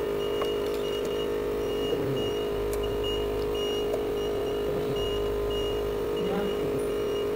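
A steady machine hum with a strong constant low tone, a faint high tone that comes and goes in short stretches, and a few light clicks.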